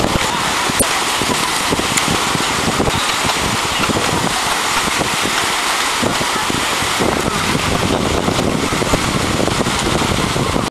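Loud, steady wind buffeting a camcorder microphone, mixed with waves breaking at the shoreline.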